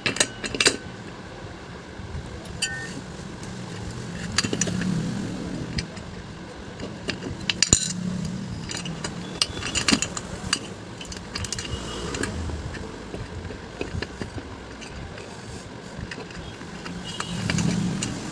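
Metal parts clinking and clicking as a bearing puller is handled and fitted onto a ceiling fan's shaft to pull out its 6202 ball bearing, in irregular sharp clicks.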